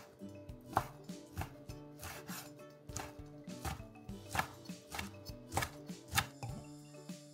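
Chef's knife slicing through a grilled chicken breast on a wooden cutting board, the blade knocking on the board one to two times a second. Light background music plays underneath.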